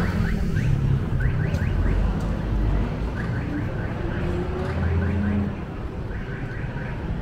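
Street traffic with vehicle engines running, one rising in pitch as it pulls away. Over it come repeated clusters of short, quick rising chirps.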